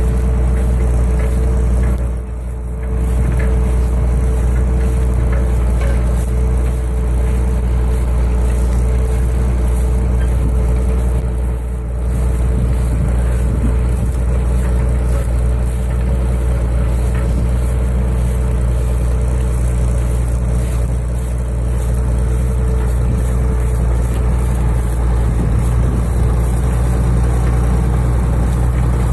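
County 1454 four-wheel-drive tractor's diesel engine running steadily under load while ploughing, with a steady whine above the engine note. The sound dips briefly twice, about two seconds in and again about twelve seconds in.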